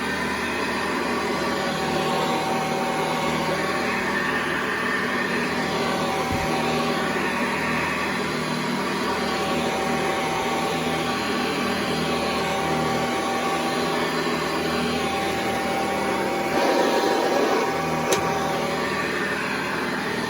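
Hoover Convertible model 1076 upright vacuum cleaner running steadily, a motor hum with a held whine. It swells louder for about a second near the end, followed by a single sharp click.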